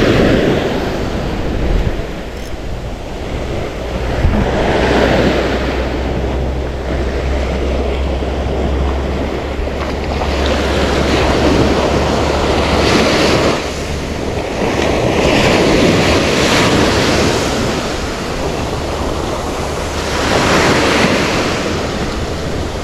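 Sea waves washing in on the shore in repeated swells every few seconds, with wind buffeting the microphone.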